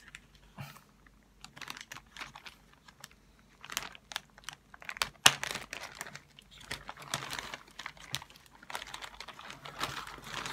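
Close handling noise: irregular clicks and rustling of plastic packaging, denser and louder in the second half.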